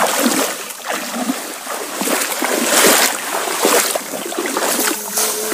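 Legs wading through shallow water, splashing and sloshing in uneven strokes, loudest about three seconds in.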